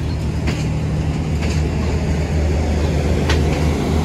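Diesel generator in a passenger train's power van running with a steady low drone, with a few sharp clicks over it.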